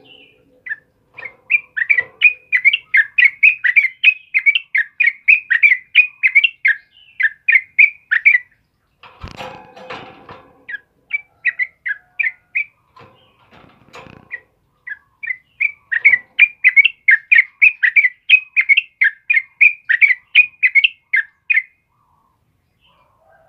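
A caged yellow-vented bulbul sings a rapid, loud run of sharp chirping notes, several a second. It breaks off for a brief rustling noise and a few scattered notes, then starts a second long run that stops about two seconds before the end.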